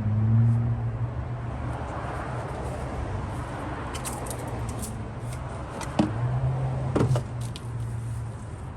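Light clicks and knocks from hands and parts being handled in a car's engine bay while hose connections are checked, over a steady low hum.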